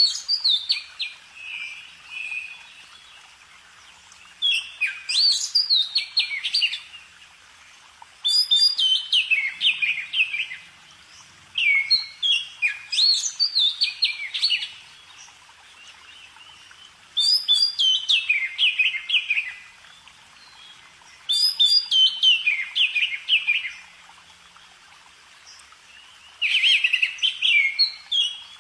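A songbird singing its song over and over: about seven loud phrases of rapid, high, falling notes, each two to three seconds long, with short pauses between them.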